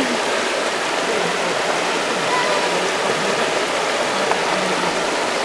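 Creek water spilling over a low rock weir: a steady rushing splash.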